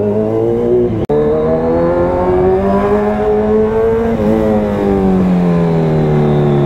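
Kawasaki superbike's inline-four engine pulling under throttle, its pitch climbing steadily for about four seconds and then falling away as the throttle eases. The sound cuts out for an instant about a second in.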